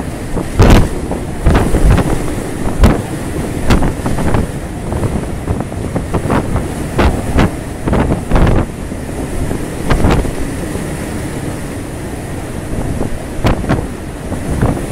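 Storm wind at sea: a constant rush of gale wind and sea, with irregular loud gusts buffeting the microphone every second or so.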